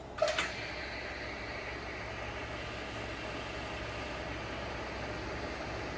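TOS horizontal milling machine's table traversing lengthwise under power feed. A brief knock as the feed is engaged just after the start, then the steady hum of the feed drive.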